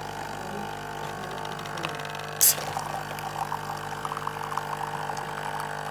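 Coffee machine running with a steady mechanical hum while a cappuccino is made, with a brief sharp, loud noise about two and a half seconds in.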